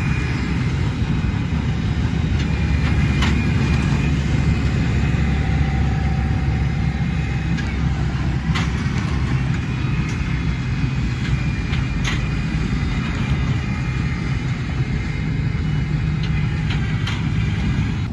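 Tractors running with hay balers working in the field: a steady low engine drone with a few sharp clacks scattered through it.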